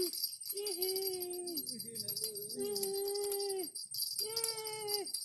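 Background music: a melody of long held notes, each bending down at its end, over continuous jingling bells.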